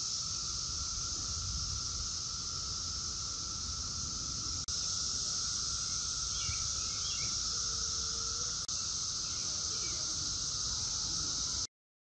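Chorus of Brood X periodical cicadas: a steady, continuous high hiss with a lower steady drone beneath it, cutting out briefly twice. A few faint short chirps come over it about six to seven seconds in.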